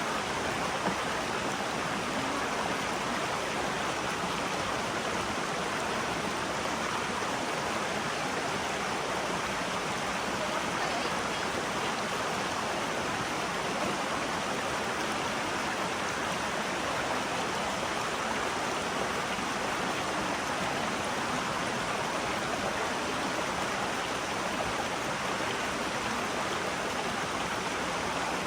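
Steady, unbroken rush of flowing water from a stream or falls.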